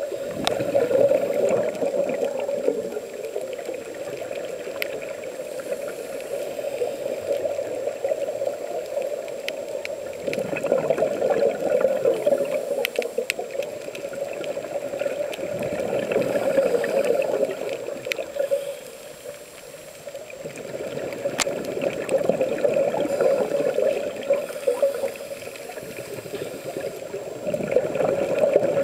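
A scuba diver's regulator bubbles gurgle and rush underwater, swelling and fading every few seconds with each breath, with a few faint clicks.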